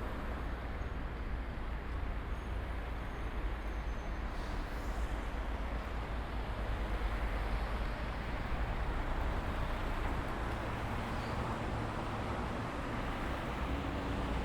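City road traffic ambience: a steady rumble and hiss of cars moving through an intersection.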